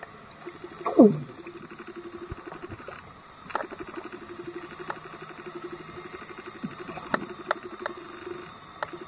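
Underwater sound: a steady, rapidly pulsing low hum, one loud falling squeak about a second in, and a handful of sharp clicks scattered through the rest.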